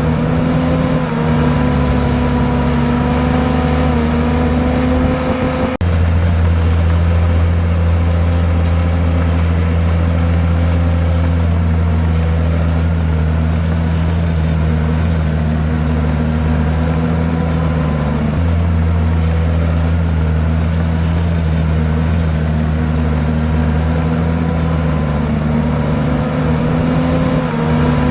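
Komatsu bulldozer's diesel engine running steadily under load, with a sudden change in its sound about six seconds in and a small drop in pitch around eighteen seconds.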